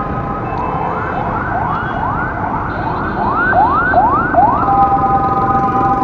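Electronic vehicle siren over street traffic noise: a steady tone that switches under a second in to a rapid rising yelp, about two to three sweeps a second, then goes back to the steady tone about four and a half seconds in.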